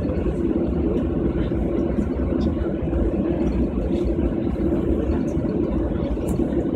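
Jet airliner cabin noise while taxiing: a steady engine drone with a pronounced mid-low hum and a low rumble, heard from inside the cabin over the wing.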